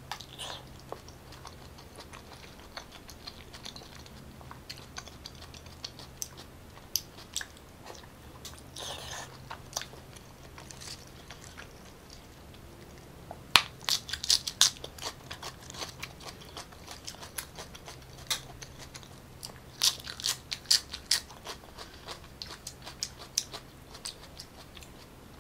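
Close-miked mouth sounds of a person eating raw salmon sashimi: wet chewing and smacking with scattered sharp clicks, and denser bursts of crisp biting a little past halfway and again about four-fifths of the way through.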